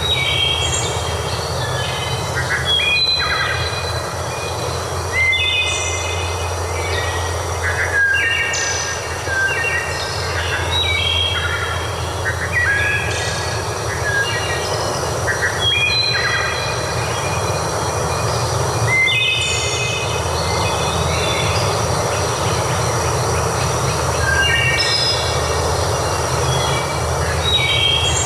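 Songbirds singing over and over, short high phrases from several birds, above a steady rush of flowing water.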